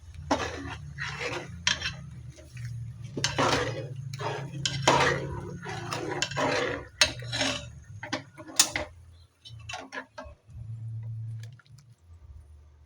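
A utensil scraping and clinking against a cooking pot in a quick, irregular run of strokes that thins out after about nine seconds. A low steady hum runs underneath.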